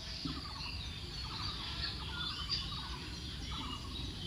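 Birds chirping and calling in quick repeated series, over a steady low background rumble.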